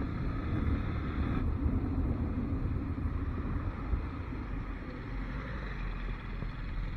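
Motorcycle engine running steadily on a ride, under a low rumble of wind on the microphone.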